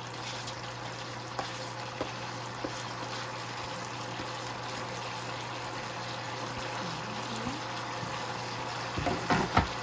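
Thickened sauce bubbling and sizzling steadily in a hot pot with the peppers and onions just added, over a steady low hum. A few light clicks early on, and a short clatter of knocks near the end.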